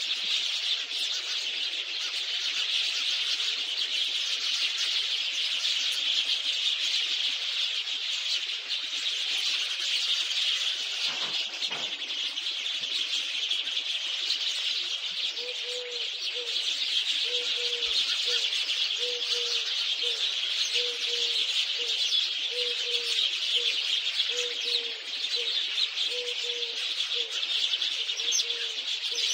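Field recording of elegant crested tinamou (martineta, Eudromia elegans) calls. A dense, steady, high-pitched chirping chorus runs throughout, and about halfway through a run of short, low, evenly spaced notes begins, about one and a half a second.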